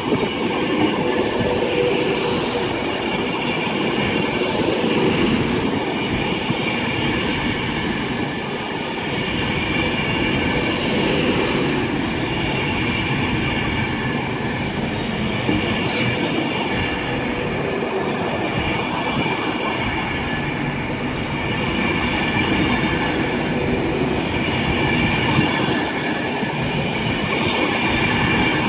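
Class 390 Pendolino electric train running alongside the platform: a steady rumble of wheels on rail with a high whine held over it, and a few brief rising sweeps.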